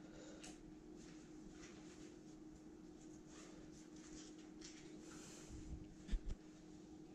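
Quiet indoor room tone: a steady low hum with faint scattered clicks, and two soft low thumps about six seconds in.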